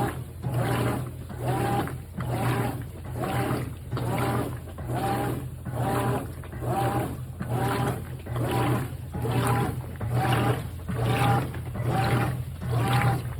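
GE top-load washing machine agitating a thick comforter in a full tub of water: rhythmic sloshing surges, about three every two seconds, over a steady low motor hum.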